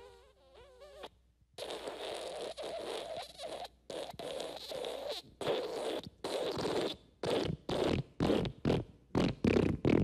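Fart sound effects. First comes a short one with a wavering pitch, then after a brief pause a long sputtering one, followed by a run of shorter farts that come faster and closer together.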